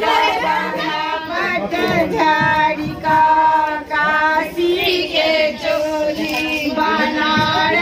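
Women singing in high voices, with long held notes.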